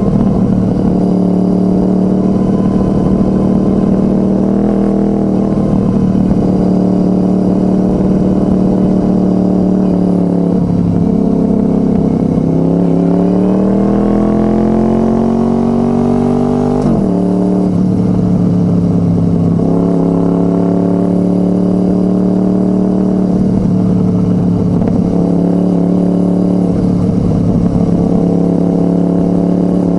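2006 Honda VFR800 Interceptor's V4 engine running through a Two Brothers Racing exhaust, mostly at a steady pace. About halfway through it accelerates, the pitch rising over several seconds, then it drops suddenly and settles back to a steady note.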